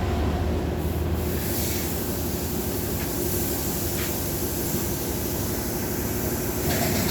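Hand-held angle grinder fitted with a sanding disc, running steadily against a solid-wood chair seat: a constant motor tone under the hiss of the abrasive on the wood. The hiss grows brighter about a second and a half in.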